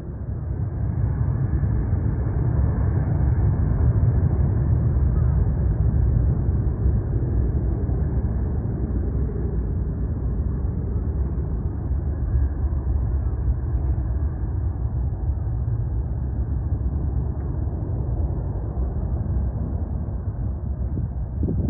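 Jet airliner engines passing: a loud, steady rush that rises over the first couple of seconds, holds, then slowly eases, with wind buffeting the microphone.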